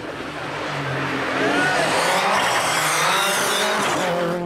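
Rally car engine revving hard as the car approaches and comes into a bend, rising and falling in pitch and growing louder.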